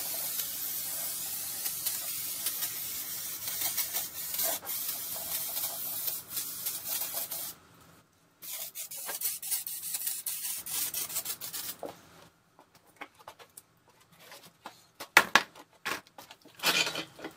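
Aerosol can of brake parts cleaner spraying onto a cast-iron engine block deck: one long continuous hiss for about seven and a half seconds, a short pause, then several shorter sprays. Scattered knocks and scuffs follow in the last few seconds.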